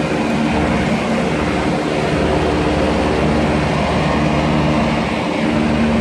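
Commercial rooftop air-conditioning condenser running: a steady rush of fan air over a constant low machine hum.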